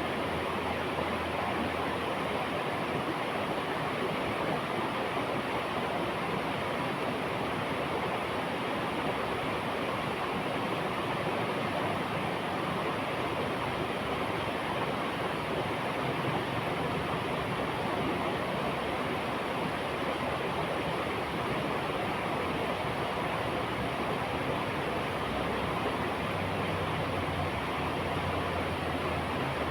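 A river flowing: a steady, even noise of running water.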